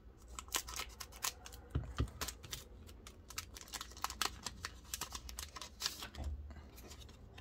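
Scissors snipping across a foil Pokémon trading-card booster pack, then the foil wrapper crinkling as it is pulled open and the cards slid out: a quick, irregular run of small crackles and clicks.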